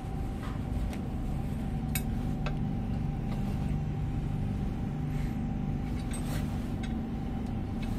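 A few short, sharp metallic clinks, scattered irregularly, as small metal fittings are handled and fitted onto a steel machine frame. Under them runs a steady low hum.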